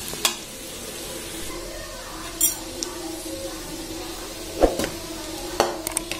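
Spatula stirring and tossing noodles and vegetables in a steel pan, with a few sharp scrapes and knocks against the metal over a steady low hum.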